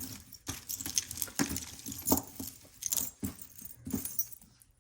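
Costume jewelry jingling and clinking as pieces are handled and rummaged through: a quick, irregular run of small metallic clicks and rattles that fades out near the end.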